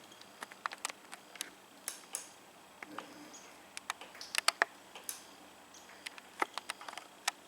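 Irregular small clicks and taps from working a lawnmower's engine kill switch and meter test leads: the switch tab being pulled, which makes the switch click, and probes being handled against it.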